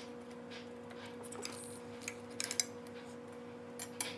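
A few light clinks of a knife against a plate while a grilled cheese sandwich is cut, several close together about halfway through and two more near the end, over a steady low hum.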